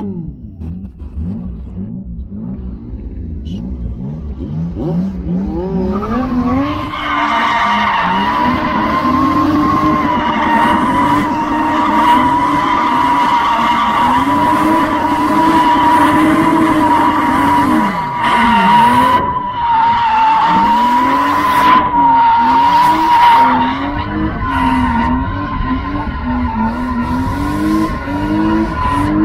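A car engine revs up over the first several seconds, then the tyres squeal in one long, steady screech as the car drifts, while the engine revs rise and fall underneath. Heard from inside the open-top car.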